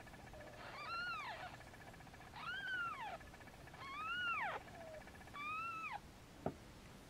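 Newborn kitten mewing: four high-pitched cries about a second and a half apart, each rising and then falling away. A single short click follows near the end.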